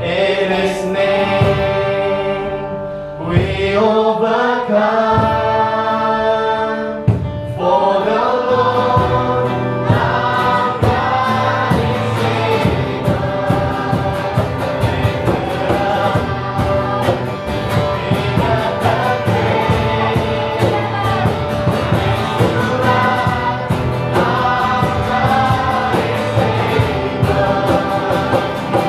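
Live Christian worship song: women singing over strummed acoustic guitars and a cajón beat. The singing is more held and open for the first few seconds, then a steady strummed rhythm comes in about seven seconds in and carries on to the end.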